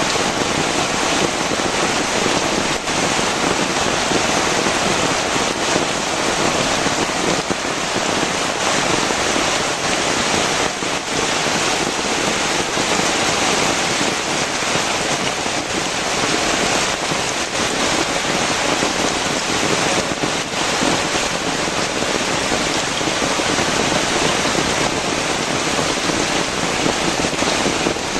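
Heavy rain pouring steadily, a dense even hiss of drops hitting the ground and surfaces, with no let-up.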